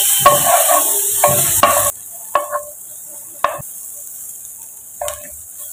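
Sliced onion sizzling in margarine in a stone-coated non-stick pan, stirred with a wooden spatula. The sizzle cuts off about two seconds in, leaving a few short spatula strokes against the pan.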